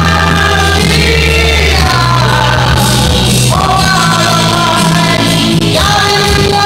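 A man singing karaoke into a handheld microphone over loud backing music, holding long notes that slide from one pitch to the next.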